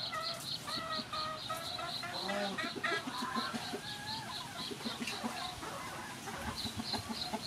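Chickens clucking, over a high chirping that repeats evenly about four times a second and stops near the end.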